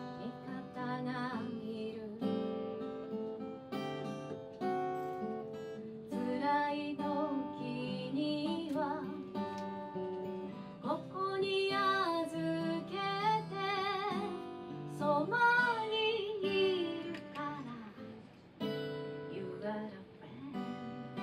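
A woman singing with vibrato to her own strummed acoustic guitar. The guitar strums steadily throughout; the voice comes in mostly in the middle and falls away near the end, leaving the guitar alone briefly.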